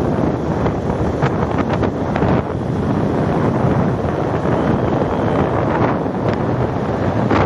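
Wind buffeting the microphone of a phone held by a rider on a moving two-wheeler: a loud, steady rush with short harder gusts.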